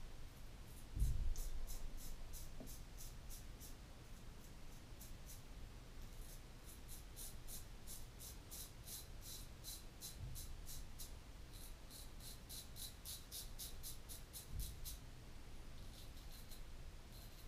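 Portland Razor Sprite straight razor cutting stubble through shaving lather: runs of short, crisp scratching strokes, about three a second, with a pause early on and another near the end. A few low bumps, the loudest about a second in.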